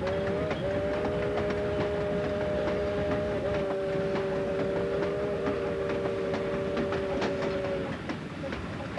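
Steam locomotive whistle sounding one long blast of about eight seconds, a three-note chord, over the rumble of a narrow-gauge train with the click of wheels on rail joints.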